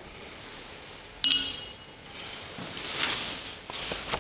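A metal chalice and paten set down on the altar, giving one sharp ringing clink about a second in, followed by the soft rustle and flap of a large missal page being turned.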